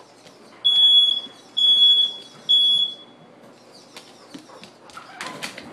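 Smoke alarm sounding three high-pitched beeps, each about half a second long and about a second apart, in the three-beep pattern of a smoke alarm's alert. A short noisy rattle near the end.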